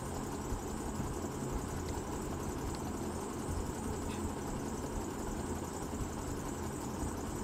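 Steady background noise, a low hum with hiss over it, unchanging throughout.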